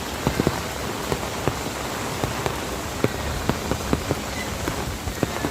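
Heavy rain falling: a steady hiss with many irregular, louder drops splashing.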